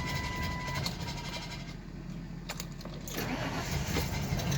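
Ford E350 van engine cranking and stumbling during a hard start, not yet running smoothly, with a dash warning chime beeping in the first second and a few sharp clicks of keys.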